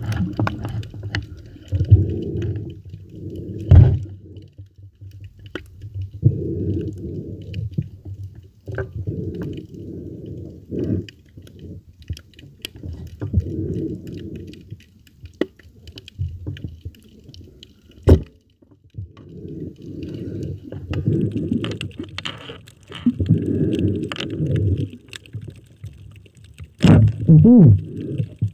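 Muffled underwater sound of a camera moved through shallow seawater: water rushes and sloshes against it in irregular low bursts, with a few sharp knocks, the loudest about four seconds in, around eighteen seconds in, and near the end.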